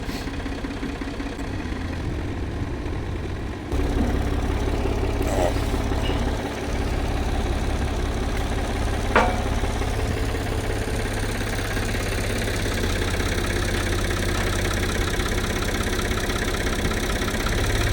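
An engine running at idle with a steady low rumble. It gets louder about four seconds in, and there is a single sharp knock about nine seconds in.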